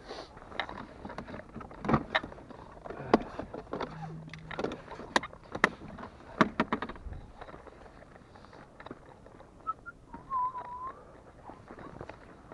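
Knocks and clatter of fishing gear being handled and packed away: a plastic tackle box and its lid, and a fishing rod. There is a string of sharp knocks over the first seven seconds, then fewer and quieter ones.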